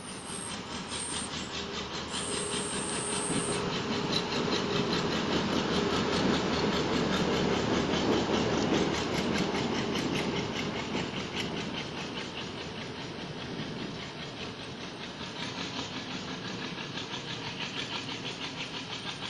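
An empty rake of ICF passenger coaches behind a WDM-3A diesel locomotive rolling past: a steady rumble with a rapid, even clickety-clack of wheels over rail joints. It is loudest about eight seconds in, then slowly fades.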